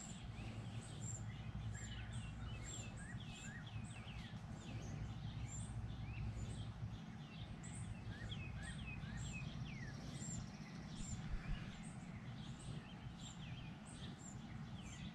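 Songbirds chirping and calling over and over, short quick notes and downward-sweeping calls, over a faint steady low rumble of outdoor background noise.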